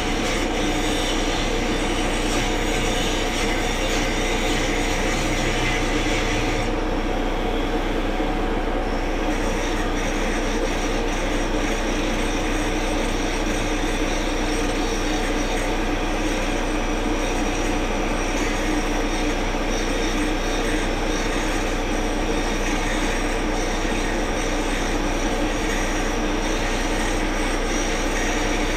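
A large engine running steadily, likely the excavator's diesel. The higher hiss drops away for a couple of seconds about seven seconds in, then comes back.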